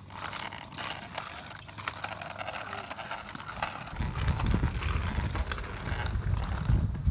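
Child's kick scooter rolling along a concrete sidewalk, its small wheels clacking over the slab joints, with a heavier low rumble from about four seconds in as it comes close.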